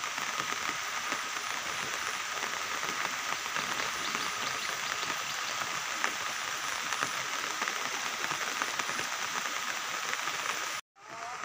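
Steady rain pattering close by, over the rush of a river in flood, with a faint steady high chirping underneath. The sound cuts out for a moment near the end.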